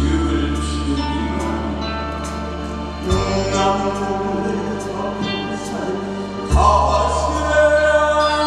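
A man sings into a microphone over a loud recorded backing track, amplified through a stage PA. The deep bass line changes note about every three seconds.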